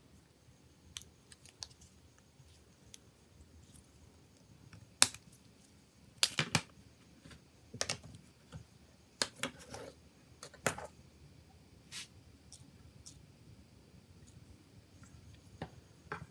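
Small tools and hard plastic parts being handled on a work surface: scattered sharp clicks and taps, a few louder snaps about five to seven seconds in and more around eight to eleven seconds.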